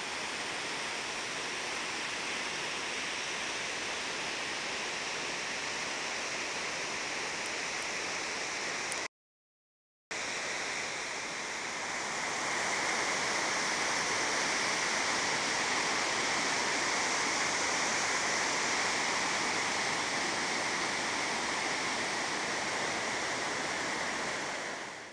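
River whitewater in flood, a steady rush of water churning over boulders and small falls. The sound cuts out completely for about a second midway, then comes back somewhat louder.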